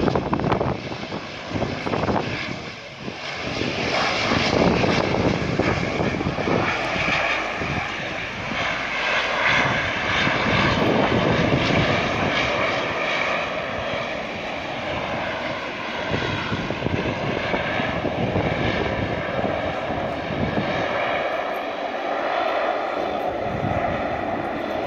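De Havilland Canada DHC-8-300 (Dash 8) twin turboprop engines running as the aircraft rolls on the ground: a steady propeller drone with a whine on top, growing louder a few seconds in and then holding steady.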